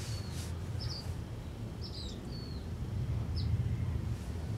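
Westinghouse All American Five tube radio warming up just after switch-on: a low hum from its speaker that grows stronger as the tubes heat up. Birds chirp briefly a few times.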